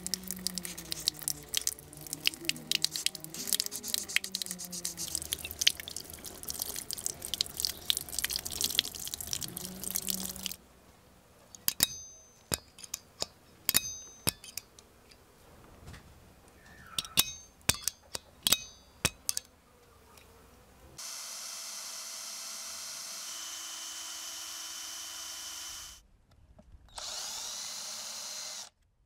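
Running tap water and wet sanding of a metal spoon-lure blank with fine sandpaper. About ten seconds in, a dozen sharp metallic taps from a centre punch marking the blank follow. Then an electric drill runs steadily for about five seconds and again briefly near the end, drilling a hole in the blank.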